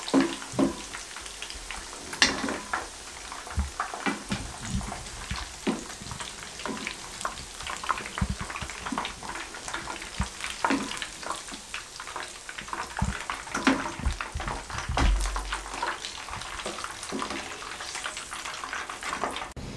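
Hot oil in a frying pan crackling and sizzling around deep-fried meatballs just off the flame, with occasional louder knocks of wooden spatulas against the pan and strainer as the meatballs are lifted out.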